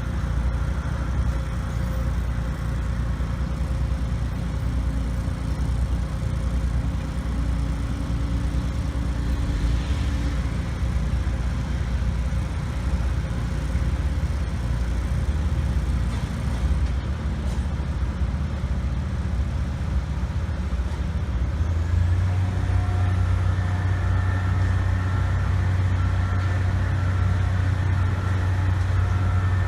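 Engine of heavy construction machinery running steadily with a low rumble. About two-thirds of the way through, the note changes to a stronger, steadier hum and grows slightly louder.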